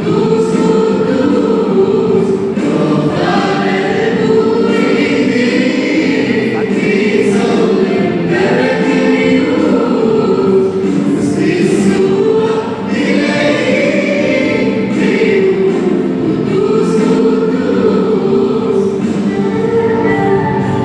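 Mixed choir of men and women singing a hymn together into microphones.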